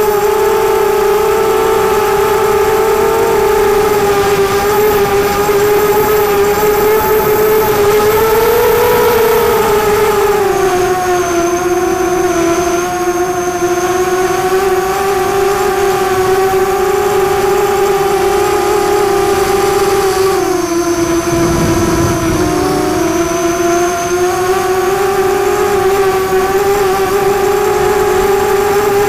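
LOBIT 300GT quadcopter's brushless motors and propellers whining steadily in flight, the pitch moving with throttle: a short rise about eight seconds in and dips about ten and twenty-one seconds in. A brief low rumble comes with the second dip.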